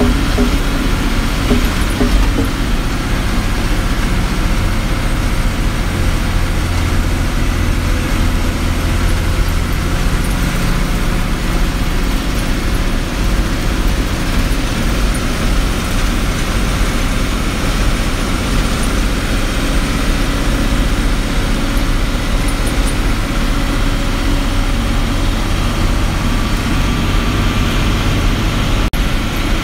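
A roadways bus running along at a steady pace, heard from inside the cabin: a constant engine hum with road and rattle noise.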